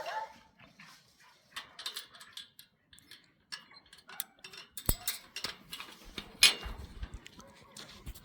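Irregular clicks and knocks from farm animals running around, with two sharper knocks about five and six and a half seconds in and a few low thumps.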